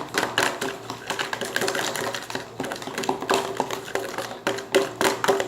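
White-glue and borax slime being stirred in a container, with many quick, irregular clicks and taps of the utensil against it.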